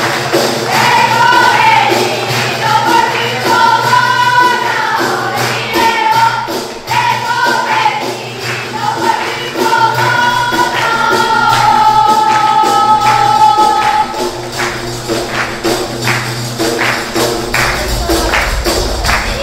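Large Albanian frame drums (def) beaten in a steady rhythm by a group of women drummers, with a sung folk melody over them from about a second in until about two-thirds through, after which only the drums go on.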